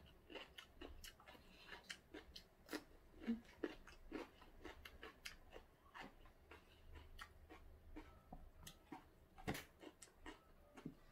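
Faint, close-up chewing of raw cucumber: irregular soft crunches and wet mouth clicks, several a second, with a sharper one a little after halfway.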